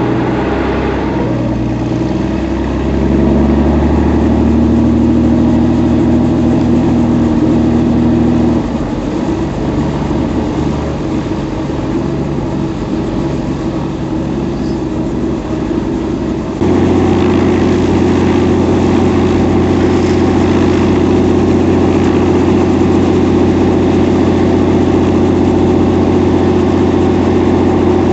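Robinson piston helicopter's engine and rotor running close by while it hovers low over the pad, a loud steady drone. Its pitch rises about two seconds in, and the sound changes abruptly about eight and a half and again about sixteen and a half seconds in.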